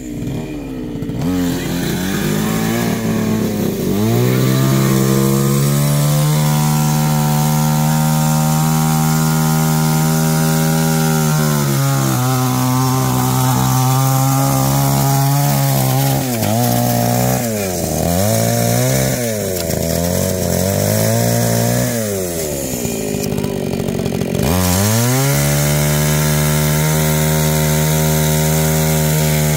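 Two-stroke chainsaw running at full throttle in long steady stretches. It drops back about twelve seconds in, is revved up and down several times, and falls nearly to idle before revving high again for the last few seconds.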